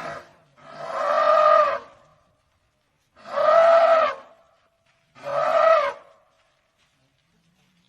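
African elephant trumpeting: the tail of one call at the start, then three loud calls of about a second each, each with a slight rise and fall in pitch.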